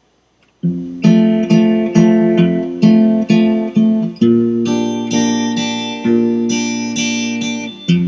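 Acoustic guitar strumming chords in a steady rhythm, about two strokes a second, starting after a brief silence, with a change of chord about four seconds in.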